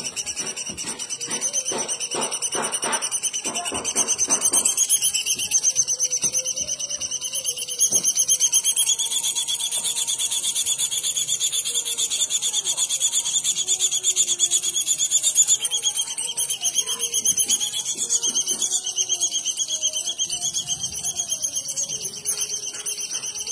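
A bird singing one continuous, high, rapidly wavering trill. A run of quick ticks comes in during the first few seconds. Fainter, lower calls come and go beneath it.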